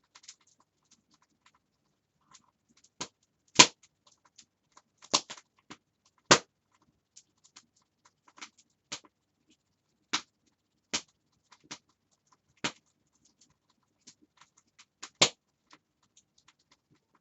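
Wood fire crackling in a fireplace: irregular sharp pops and snaps, about fifteen of them, the loudest a few seconds in and near the end, with near silence between.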